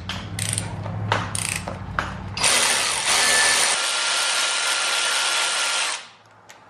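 Cordless electric ratchet loosening the bolts of a high-pressure fuel pump: a few light metal clicks, then the tool runs steadily for about three and a half seconds and stops abruptly.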